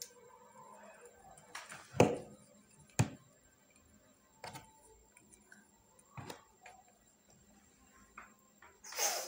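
Metal yoyo being thrown and caught, giving four sharp knocks, the two loudest about two and three seconds in, with faint ticks between them.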